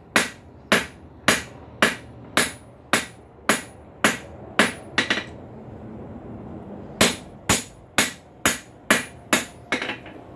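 Hand-hammer blows on a hot high-carbon steel bar on an anvil, being forged from round to square, about two blows a second with a short metallic ring to each. The blows pause for about two seconds midway, and a few lighter, quicker taps come near the end.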